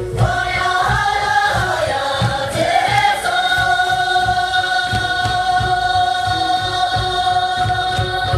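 Sherpa dance song: a sung melody that bends up and down, then settles about three seconds in on one long held note, over a steady low beat.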